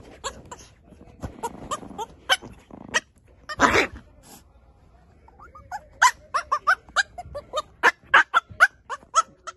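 Puppy yapping: many short, high-pitched yips, with one louder, harsher bark about three and a half seconds in. The yips speed up into a rapid run over the last few seconds.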